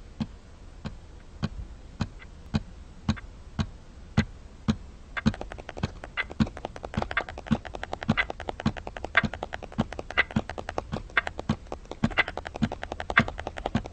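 Wall clock ticking steadily, about two ticks a second. From about five seconds in, a faster run of lighter clicks and taps joins the ticking.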